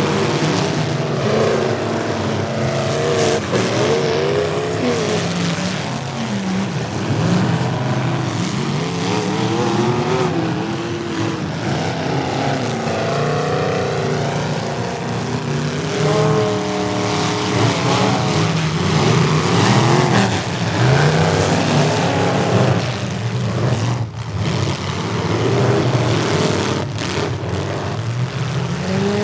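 Several demolition derby car engines running and revving unevenly together, their pitch rising and falling.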